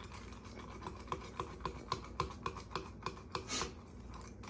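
A spoon stirring cereal and milk in a stemmed wine glass, ticking against the glass in a light, regular run of about four clicks a second that stops about three and a half seconds in.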